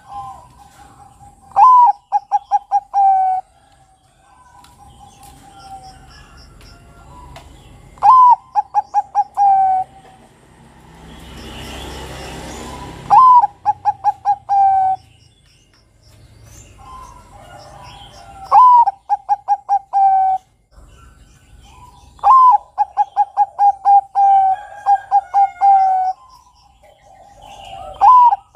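A Bangkok-type zebra dove (perkutut) cooing its song about six times: each phrase opens with a rising note and runs into a quick string of soft, rolling coos, with fainter cooing between phrases. A brief rushing noise comes about twelve seconds in.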